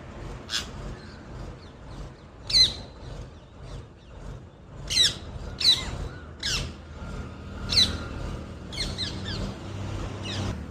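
Parrot squawking: a string of about eight short, shrill calls at uneven intervals, the loudest about two and a half seconds in and again around the middle.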